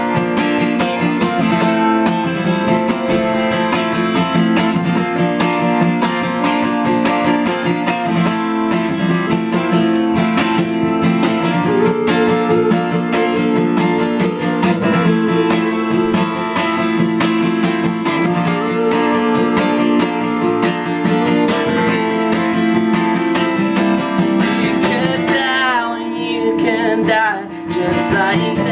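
Acoustic guitar strummed steadily in a quick, even rhythm of chords.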